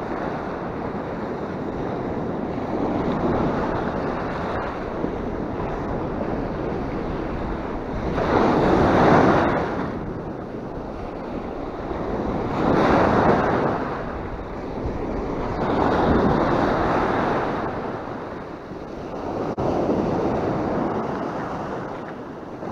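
Sea waves breaking and washing up a sandy shore: a continuous rush of surf with waves crashing in about every three to four seconds, the loudest about nine seconds in.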